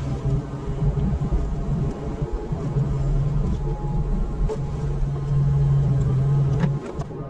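Yanmar SV100 excavator's diesel engine running steadily while working a Fecon forestry mulching head, with a few sharp clicks. It gets louder about five seconds in and eases briefly near the end.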